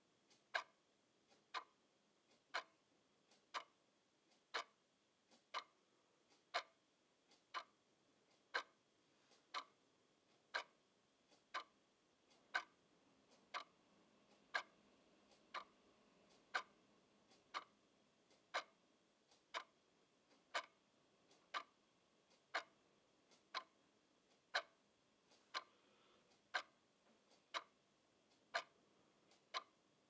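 Wall clock ticking steadily and quietly, about one sharp tick a second with a fainter tick between.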